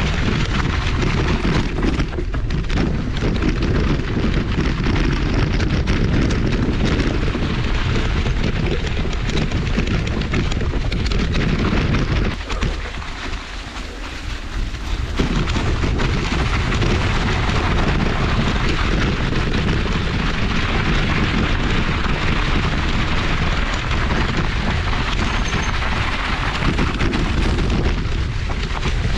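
Mountain bike riding down a snowy forest trail: a loud, continuous rumble of wind buffeting the camera microphone, mixed with the bike's tyre and rattle noise. It eases off for a couple of seconds about halfway through.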